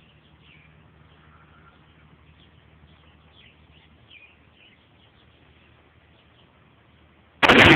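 Faint bird chirps over quiet outdoor air, then near the end a single loud shot from a Mosin-Nagant bolt-action rifle (7.62×54mmR).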